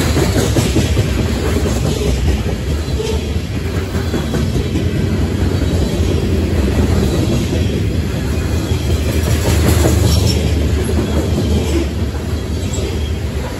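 Freight train of covered hopper cars rolling past: a loud, steady rumble of steel wheels on the rails.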